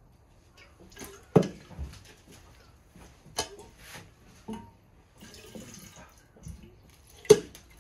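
A series of sharp knocks among softer handling noises. The loudest knocks come about a second and a half in and near the end, with smaller ones in between.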